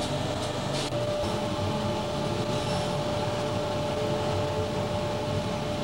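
EMD GF6C electric locomotive running, heard from inside the cab: a steady rumble of wheels on rail with a constant electrical whine above it.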